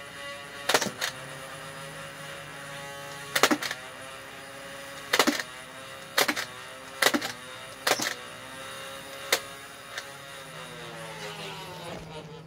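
Motorised Nerf blaster's flywheels whirring steadily, with seven sharp firing snaps spread over about nine seconds; the motor whine falls in pitch near the end as the flywheels spin down.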